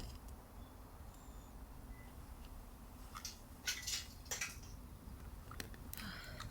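A few short scrapes and clicks from handling gear over a low steady background rumble, with a cluster a little past halfway and another near the end.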